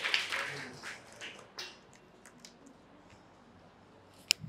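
Scattered clapping fading out in the first second, then quiet room tone with faint clicks. About four seconds in comes a single sharp knock as the clip-on lavalier microphone on the shirt is handled.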